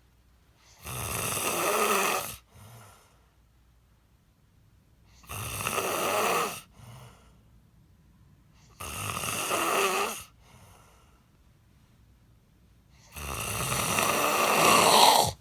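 A man snoring in his sleep: four loud, rasping snores about four seconds apart, each building in loudness and followed by a short faint breath, with the last snore the loudest.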